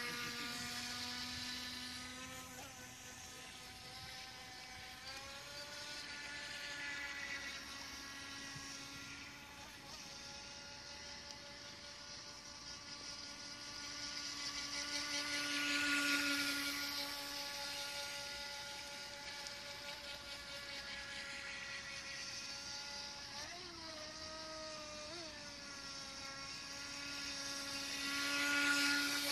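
Electric motor and propeller of a Buddy Toys High Speed Boat 350 (FT007) radio-controlled speedboat, giving a steady high whine as it runs on the water. The pitch steps up about five seconds in and jumps briefly twice near the end with throttle changes. It grows louder about halfway through and again near the end as the boat passes close.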